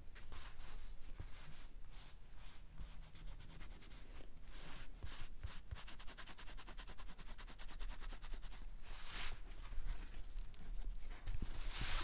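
Hand rubbing across damp eco-printed paper, rolling dried leaves and petals off the print: fast scratchy rustling with a few louder swishes.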